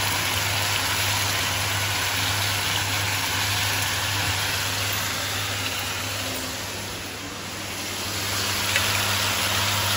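Sliced capsicums sizzling in a frying pan, a steady hiss with a low hum underneath. It is softer for a moment about seven seconds in.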